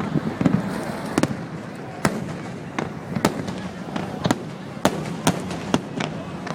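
Fireworks display: sharp bangs going off irregularly, about one or two a second, over a continuous crackling rumble.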